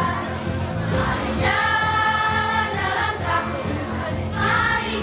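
A children's choir sings a Christmas song together over instrumental accompaniment that keeps a steady beat with a high, jingling tick. The choir holds a long chord from about a second and a half in.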